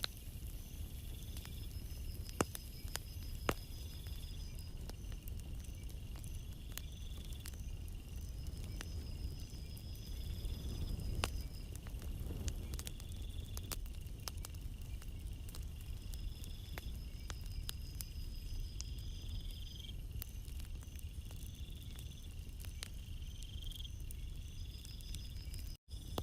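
Calm sea waves washing onto a shore as a low steady rumble, swelling slightly partway through. Over it, insects such as crickets trill high and pulsing in repeated stretches of a few seconds each, with a few sharp clicks near the start.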